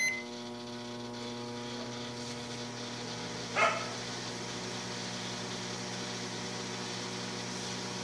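Open microwave oven started with a short beep, then running with a steady hum. The magnetron is getting no high voltage, so the oven is not heating; the repairer puts this down, probably, to the open fuse. A brief sharp sound comes about three and a half seconds in.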